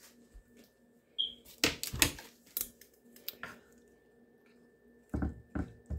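Kitchen utensils knocking on a bamboo cutting board as a tortellini is set down with a wooden spoon and cut with a knife. A cluster of sharp knocks comes about two seconds in, then a few lighter taps, then two heavier knocks near the end.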